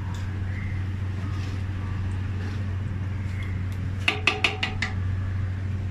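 Wooden spatula stirring a liquid coconut-milk mixture in a stainless steel pan, then knocked about five times in quick succession against the pan a little past the middle, each knock making the steel ring briefly. A steady low hum runs underneath.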